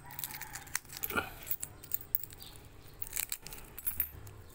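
Coins in clear plastic sleeves clinking and crinkling as they are handled by hand, a run of small irregular clicks.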